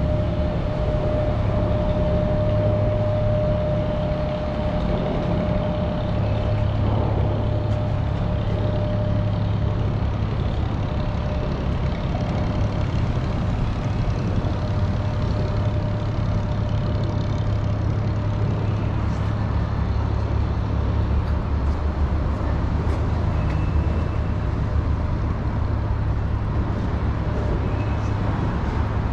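Steady low rumble of road traffic on the bridge overhead, with a steady hum in it that fades out about twelve seconds in.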